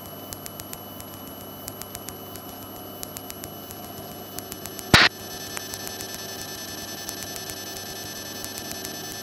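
Light aircraft cockpit background heard through the intercom recording: a steady engine and electrical drone with thin whining tones and a run of small regular ticks. About five seconds in, a short sharp burst of noise, after which the whining tones are stronger.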